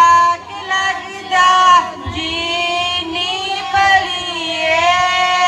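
A woman singing a Punjabi folk song into a handheld microphone, with long, held notes toward the end.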